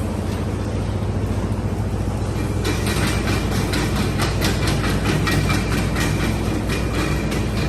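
The electric motors of a small radio-controlled weed-spraying cart running with a steady hum; a fast, irregular clatter joins about two and a half seconds in.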